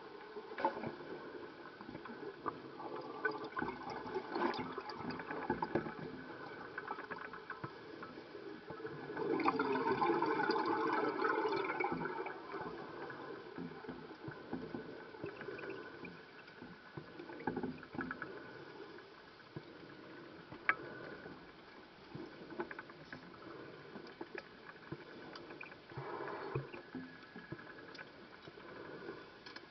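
Scuba diver breathing underwater: regulator exhaust bubbles in bursts a few seconds apart, the loudest about ten seconds in, with occasional sharp clicks.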